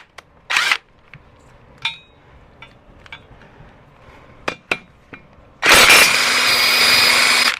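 Metal parts and tools clinking a few times, with a short ring on some strikes. Near the end comes a loud, steady rushing noise that lasts about two seconds and cuts off suddenly.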